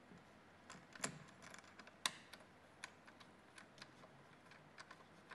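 Scattered small clicks and taps of hands handling a Sony NEX-FS100 camcorder while fitting its top handle, the sharpest click about two seconds in.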